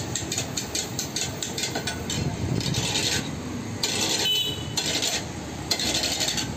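Turkish ice cream being worked with a long metal paddle in a metal freezer well. There are quick knocks in the first second and a half, then three longer scraping strokes of about a second each.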